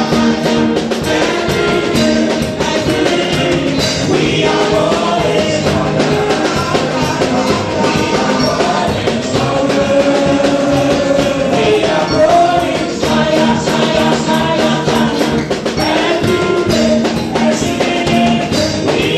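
Upbeat music with singing and a steady beat from a band.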